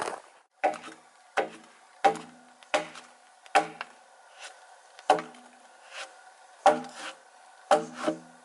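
A hewing axe chopping down along the side of a peeled log, hewing it by hand. About a dozen sharp strikes come at a steady pace, roughly three every two seconds. Each strike is followed by a brief hollow ring from the wood.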